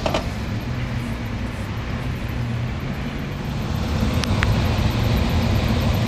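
Steady machine drone with a low hum: the package unit's indoor blower running while a vacuum hose clears dirt from the bottom of the cabinet. A brief knock near the start.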